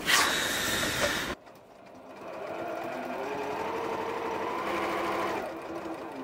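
A loud rustle of handled fabric for about the first second, cut off abruptly. Then a Janome sewing machine speeds up, stitches a side seam at a steady speed for a couple of seconds, and slows to a stop near the end.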